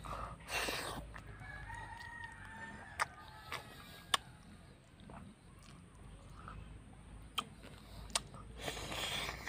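A rooster crows once, a single long call starting about a second and a half in, fainter than the close sharp clicks and smacks of someone eating rice and fish by hand next to the microphone.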